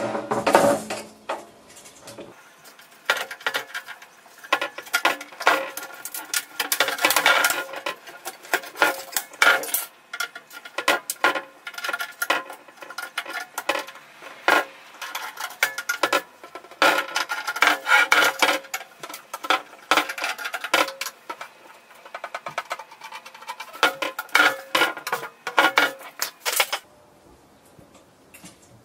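Quick bursts of clicking, clattering and rattling of sheet metal and plastic as an LCD panel's edge frame and clips are pried apart by hand.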